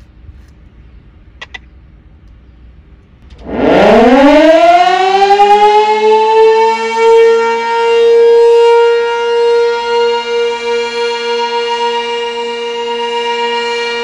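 Sentry Siren 16V1T-B outdoor warning siren starting up about three and a half seconds in: its pitch rises quickly and levels off into a loud, steady tone, sounding a short alert for a tornado siren test. Before it starts there is only faint outdoor background with a couple of small clicks.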